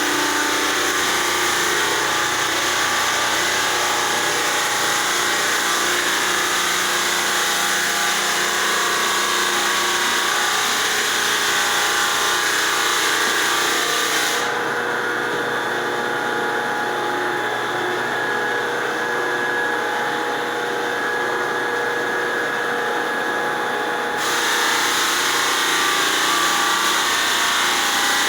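Belt floor sander running steadily, sanding wood floorboards with a coarse 36-grit sleeve: a continuous motor hum with steady whining tones under the hiss of the abrasive. The higher hiss drops away for about ten seconds in the middle, then comes back.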